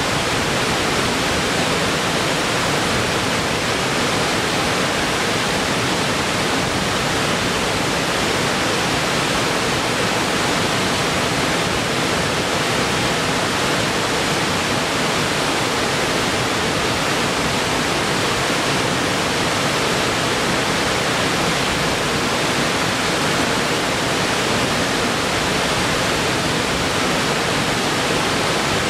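A tiered waterfall cascading over rock ledges into a pool: a steady, unbroken rush of water.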